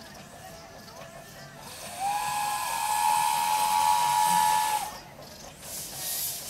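Narrow-gauge steam locomotive's steam whistle: one long blast of about three seconds, starting about two seconds in, two close pitches sounding together.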